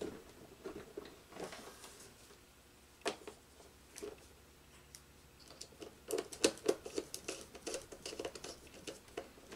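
Screwdriver working the terminal screws of a magnetic contactor, with small clicks and scrapes of tool and wire: a few separate ticks at first, then a busy run of scratchy clicks from about halfway through.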